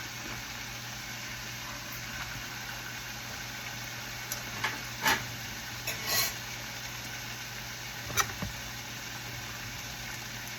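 Vegetables with a little oil and water sizzling and steaming in a covered frying pan: a steady hiss over a low hum, with a few faint clicks and a short spurt of hiss about six seconds in.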